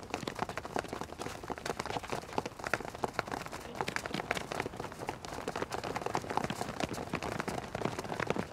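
Quick, irregular footsteps of several people sprinting on a synthetic running track.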